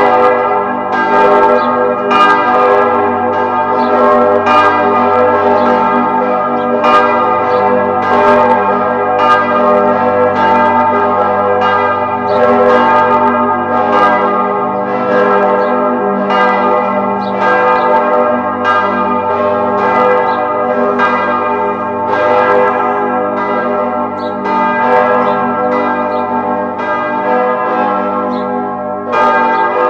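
Several church bells ringing together without pause, struck again roughly every half second to second, their tones overlapping into one dense, sustained peal.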